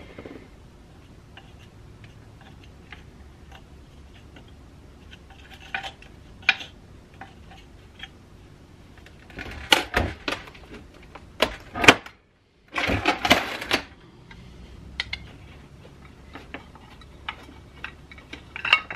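Scattered clicks and scraping as a small metal tool pries and scrapes at the mud-caked steel housing and windings of an old electric motor, dried mud crumbling off. The clicking and scraping come thickest around the middle.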